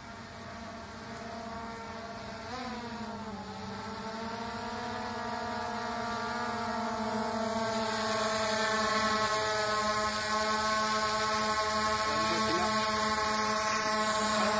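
Skydio 2 quadcopter's propellers buzzing in flight, a steady multi-tone whine that rises and dips in pitch about two and a half seconds in, then grows steadily louder as the drone comes close overhead.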